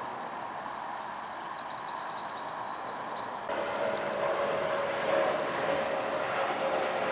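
Jet airliners passing overhead on approach: a steady, fairly distant jet noise, then an abrupt cut about a third of the way in to a louder Airbus A320-214 with CFM56 engines, its engine noise carrying a steady whine.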